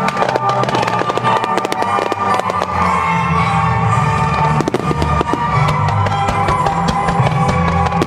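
Fireworks bursting and crackling in quick succession over music from the show's loudspeakers.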